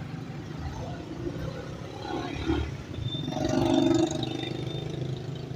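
Street traffic: engines running with a steady low rumble, and one motor vehicle passing closer and louder about three and a half seconds in.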